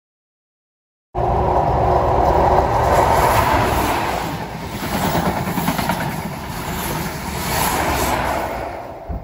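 Passenger train passing close by at speed: steady rumble and rush of wheels on rail and air, starting abruptly about a second in and rising and falling slightly as the carriages go by.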